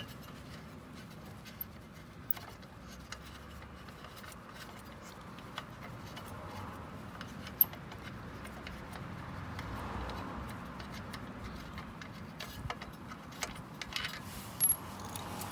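Scattered light metallic clicks and ticks as a motorcycle's exhaust mounting bolt and its hardware are turned and handled by fingers. The clicks come closer together near the end, over a faint steady background noise.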